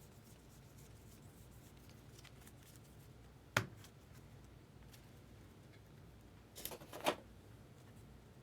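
Trading cards being handled and sorted by hand: faint ticks and rustles, a sharp tap about three and a half seconds in, and a short cluster of clicks and rustles near the end.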